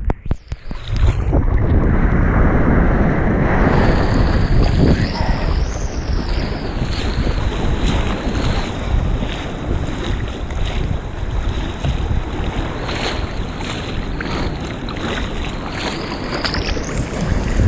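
Wind buffeting the microphone over waves washing in on the beach, with water splashing around a large striped bass held by the tail in the shallows.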